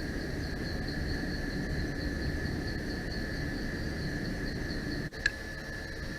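Steady hiss with a constant high whine and a faint pulsing high tone: electronic noise from a digital night-vision scope's recording. It breaks off briefly about five seconds in, followed by a single sharp click.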